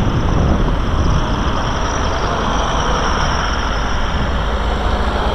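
Road traffic passing close by on a city street, cars and a minibus driving past in a steady, loud rumble, picked up by the tiny built-in microphone of camera sunglasses.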